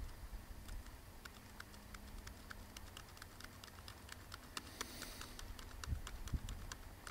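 Laptop keys clicking, a few light taps a second at uneven spacing, as trail camera photos are paged through one after another.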